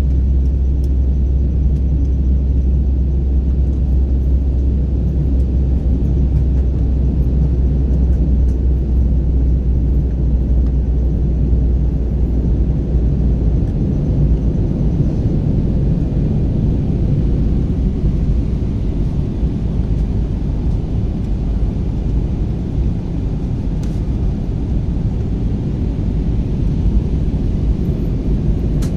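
Passenger aircraft cabin noise in flight: a steady, low engine and airflow rumble heard from inside the cabin, its deepest part easing off about halfway through.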